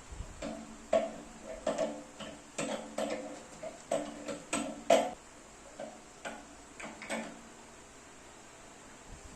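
A series of light metallic clinks and knocks, each ringing briefly, about a dozen at an uneven pace, stopping about seven seconds in.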